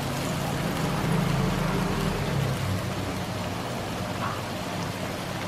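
Watery chilli sauce sizzling and bubbling in a hot iron wok, a steady crackling hiss over a low hum.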